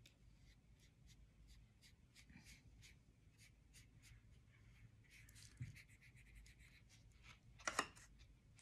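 Faint paintbrush strokes on paper, soft quick dabs several times a second as paint is spread around, with a soft knock a little past halfway and one louder brief scrape near the end.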